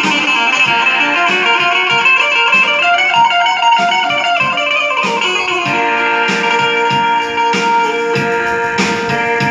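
Amplified bulbul tarang (Indian banjo) playing a melody. The strings are plucked rapidly while the keys are pressed, and from about halfway the notes ring out longer.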